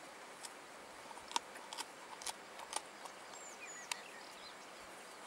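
Faint outdoor ambience: a steady hiss with scattered sharp clicks and a few brief bird chirps a little past the middle.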